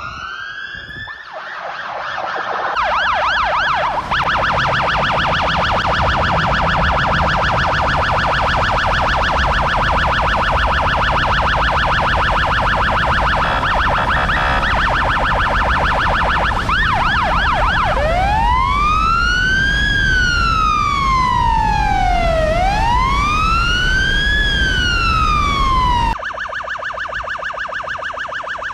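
Electronic siren sounding, first a fast warbling yelp, then past the middle a slow wail that rises and falls twice, over a steady rumble of floodwater gushing from the dam's opened outlet. Near the end it cuts suddenly to a quieter, faster warble.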